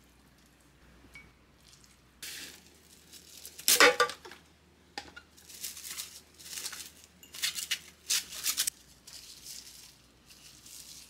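Kitchen handling sounds: a series of short rustling, crinkling bursts and one sharp clink of dishware about four seconds in.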